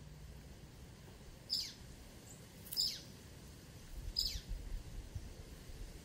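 Blue-gray tanager giving three short, high call notes, each sliding sharply down in pitch, spaced about a second and a half apart.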